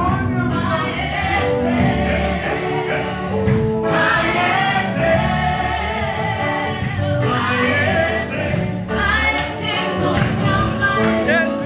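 A choir of mixed voices singing a Zulu gospel song with instrumental backing.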